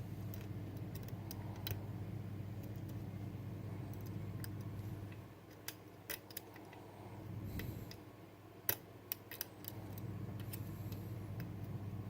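Small metallic clicks and scratches of a lock pick working the sliders of a Bellock cam lock, with a few sharper clicks in the middle, over a steady low hum.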